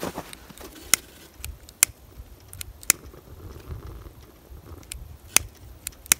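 Hand lighter being struck over and over, about five sharp clicks at uneven intervals, as it is held to kindling paper under charcoal that is slow to catch.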